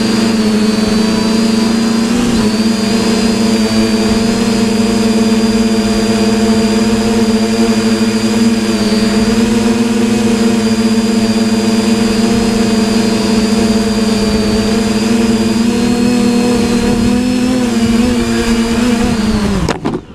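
TBS Discovery quadcopter's electric motors and propellers running steadily at hover, heard close up through the onboard camera as a loud hum with a high whine over it. Near the end the hum sags and then cuts off suddenly as the quad touches down and the motors are disarmed.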